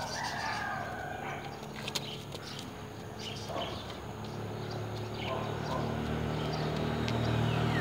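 Birds chirping, with a few sharp clicks. From about halfway, a motor scooter's engine approaches, growing steadily louder toward the end.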